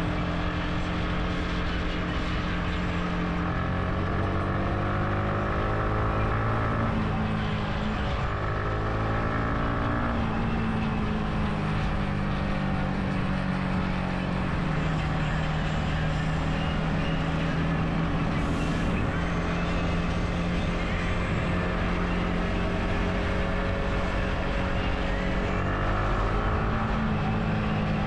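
Motorbike engine running under way, its pitch climbing for several seconds, dropping suddenly about ten seconds in, then holding steady before climbing again near the end.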